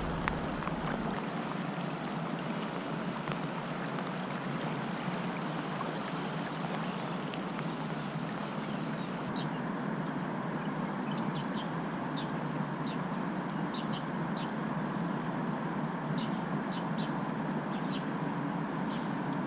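Steady rush of water over a river riffle running fast. From about halfway, short high chirps come in over it now and then.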